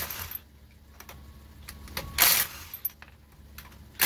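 Cordless DeWalt impact wrench hammering in three short bursts of about half a second, roughly two seconds apart, spinning off a car's wheel nuts. Light metallic clinks of the socket and nuts come between the bursts.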